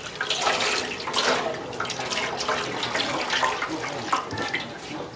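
Water poured from a scoop splashing unevenly onto a baby macaque and into a metal basin of water.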